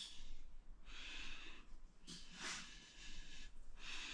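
Faint breath sounds close by: about four breathy hisses, roughly a second apart.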